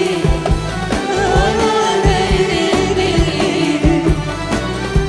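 Live Arabic pop orchestra playing a melodic passage between sung lines, a gliding melody over a steady drum beat.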